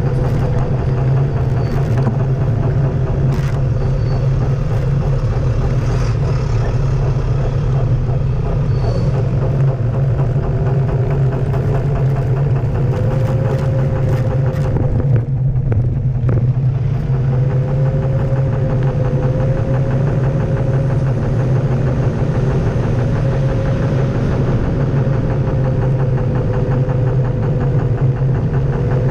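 Onewheel electric board riding over asphalt: a steady low rumble of the tyre on the road, with a whine from the hub motor that slowly rises and falls in pitch as the speed changes.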